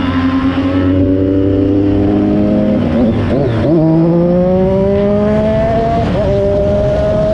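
Triumph Daytona 675 three-cylinder engine accelerating hard through the gears. Its pitch climbs and then drops at upshifts about three and six seconds in, with wind rumbling on the microphone.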